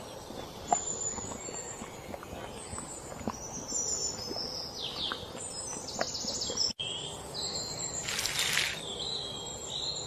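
Birds chirping and calling over a steady background hiss, with short high chirps and trills scattered through. A brief noisy burst comes about eight seconds in.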